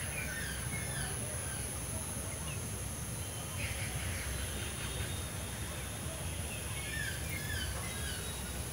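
Birds calling in short, scattered chirps and quick runs of gliding notes, over a steady low rumble of wind.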